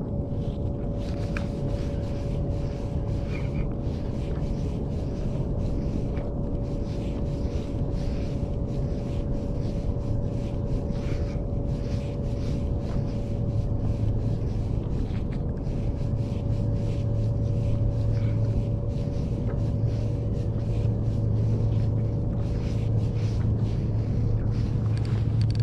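Steady low rumble with a faint constant hum of a distant motor, a little louder in the second half.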